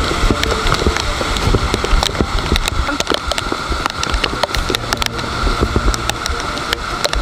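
Mountain bike ridden over a rough, wet road in the rain, with wind rushing over the action camera's microphone and frequent sharp rattles and clicks from the bike.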